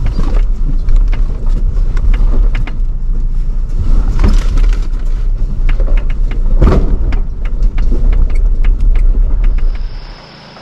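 4x4 driving over a rough dirt trail: a heavy low rumble with frequent knocks and rattles from the vehicle, dropping off suddenly near the end.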